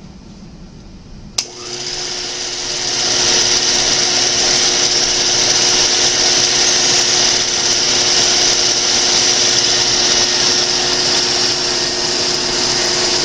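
Wittnauer Cine-Twin 8mm projector switched on with a click about a second and a half in, its motor and film drive then coming up to speed over a couple of seconds and running with a steady whir and a constant low hum.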